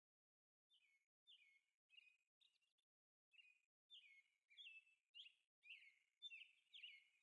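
Faint bird chirping: a quick series of short, clear notes, many falling in pitch, about two a second and growing louder toward the end.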